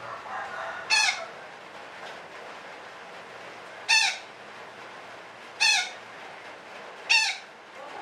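Sumatran betet parakeet giving four short, harsh squawks, spaced a second and a half to three seconds apart.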